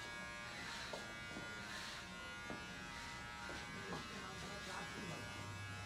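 A small electric motor running with a steady, even buzz.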